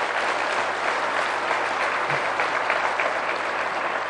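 A large seated audience in an auditorium applauding steadily.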